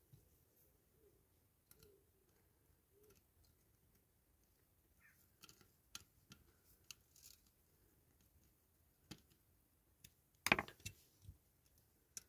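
Faint, scattered clicks and taps of small die-cast toy parts being handled and fitted during assembly, with one louder knock near the end.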